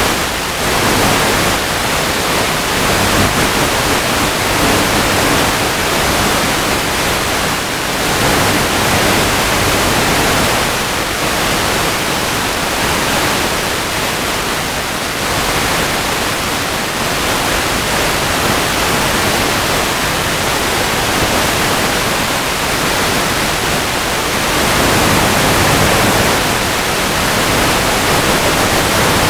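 Steady static hiss from an analog FPV video link's audio channel, with a faint low hum showing through at times.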